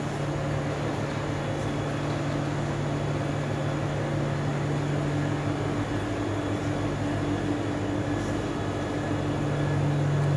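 Steady low mechanical drone, a little louder near the end.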